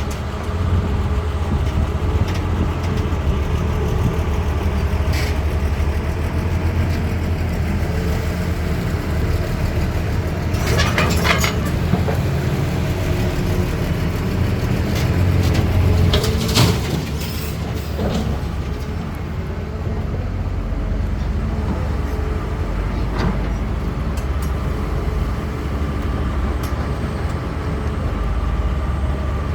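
CAT 320D excavator's diesel engine running steadily, with sharp clattering knocks a little over ten seconds in and again about sixteen and a half seconds in.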